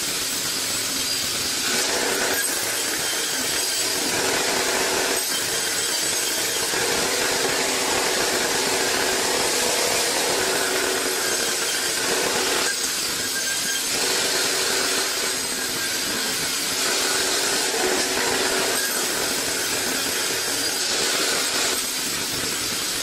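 Vertical band saw sawing lengthwise through a log: a steady rasping cut over a motor hum that comes and goes every few seconds.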